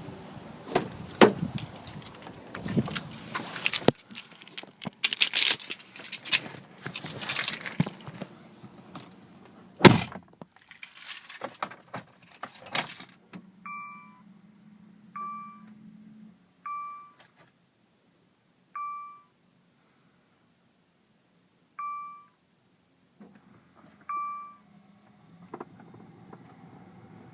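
Keys jangling and rattling, with a heavy thud about ten seconds in. Then a series of short, clean electronic beeps, about seven spread over ten seconds, over a faint low hum at times.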